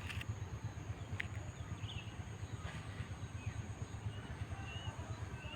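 A few short, faint bird chirps over a steady low rumble.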